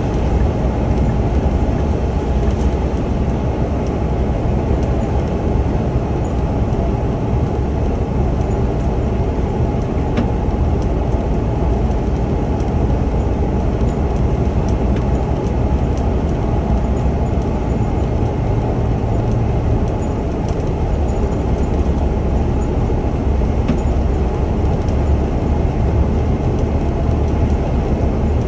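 Scania Omnilink bus cruising at highway speed, heard from inside the driver's cab: a steady low drone of the moving bus that stays even throughout.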